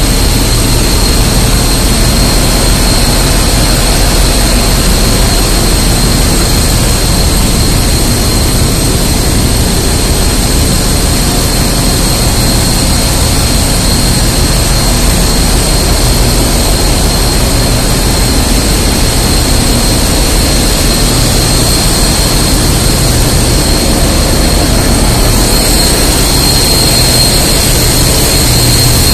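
Loud, steady engine-room din of a container ship's running machinery: a constant low rumble with a steady high whine over it.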